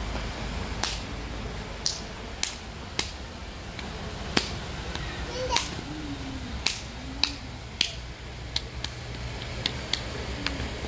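About a dozen short, sharp clicks or snaps at irregular intervals over a low steady outdoor background, with a faint distant child's voice near the middle.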